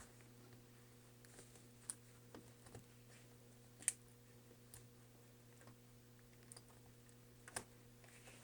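Near silence over a faint steady hum, broken by about seven small, sharp clicks and taps, the clearest about four seconds in. These come from small plastic and metal parts and a ribbon cable being handled inside an opened MacBook Pro.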